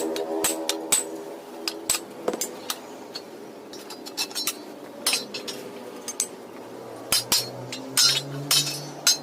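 Hammer blows on the steel sheet-metal panels of a pickup's load bed as they are beaten straight by hand. The strikes come irregularly, each a sharp metallic clank with a brief ring, and they grow more frequent toward the end.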